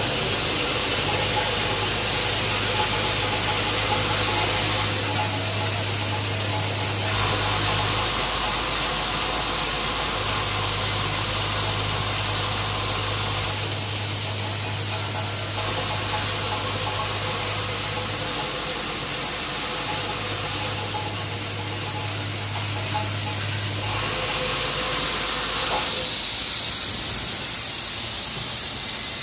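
Screw and bonded washer assembly machine with its hopper, inclined conveyor and vibratory bowl feeder running, making a steady dense hiss of rattling parts and machinery. A low hum cuts in and out three times.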